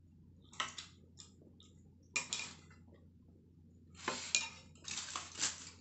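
Spoons and forks clinking and scraping against ceramic plates during a meal, in a string of short, sharp clatters that come closer together near the end.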